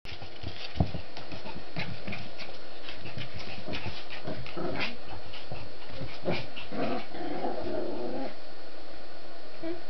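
Small Lhasa Apso dogs making low vocal sounds among scattered clicks and scuffles. There is a sharp knock about a second in and a longer rough sound about seven seconds in.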